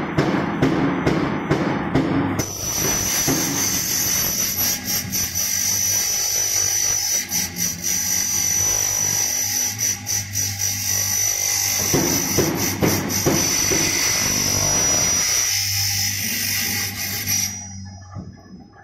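Spiral tube forming machine running as it winds metal strip into a filter center tube: a few seconds of regular clacking, about two or three a second, then a steady high whine over a low hum, which stops shortly before the end.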